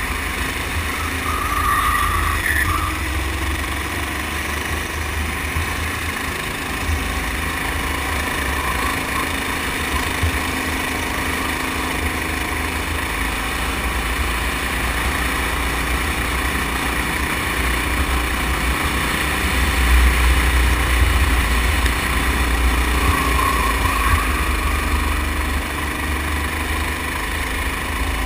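Go-kart engine running at speed, heard from the driver's seat, its pitch rising and falling through the corners. A heavy, steady low rumble of wind on the microphone runs under it.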